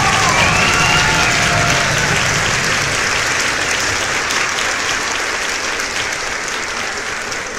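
A Boeing 737's jet engines passing close on final approach: a loud, steady rushing roar with a whine whose tones glide over the first couple of seconds. The roar slowly fades as the airliner touches down and rolls away.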